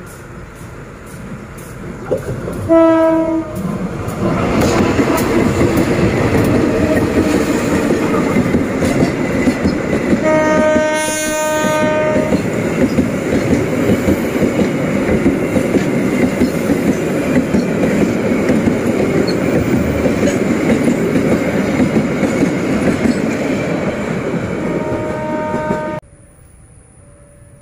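Freight train of bulk-cement tank wagons hauled by a diesel locomotive passing close by. A short horn blast sounds about three seconds in, then the wagons' wheels run past steadily and loudly. A longer horn blast comes about ten seconds in, a brief one near the end, and then the sound cuts off abruptly.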